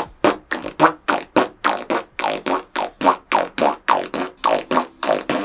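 Beatbox lip roll: a mouth buzz with the lips vibrating, made as a quick, even series of short pulses, about four a second, each falling in pitch.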